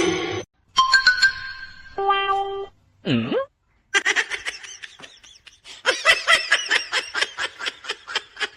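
Short edited sound bites cut off abruptly: a few brief held tones and a quick swooping sound, then from about halfway a rapid, pulsing run of laughter over music.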